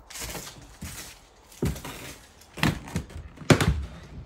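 A short scraping rustle, then a series of sharp thuds and knocks about a second apart, the loudest near the end, in a small room.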